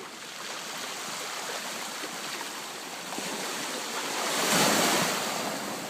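Sea surf washing onto a beach, building to a wave breaking loudest about four and a half seconds in, then easing off.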